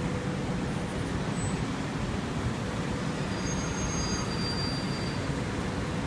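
Steady rumble and hiss of rain and road traffic on wet streets.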